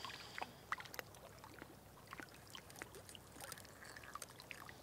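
Faint, scattered small clicks and ticks of a knife cutting into a kokanee salmon behind the head, over a soft haze of lake water lapping at the shore.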